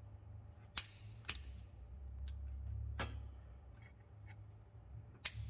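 Click-type torque wrench clicking as it reaches the 14 N·m set torque on a Honda Fit's valve-adjuster lock nuts. There are four sharp clicks: two close together about a second in, one near the middle and one near the end, over a faint low hum.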